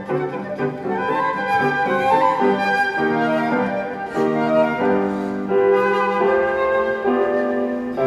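Flute music played live: a slow melodic passage of held notes, changing every half second to a second.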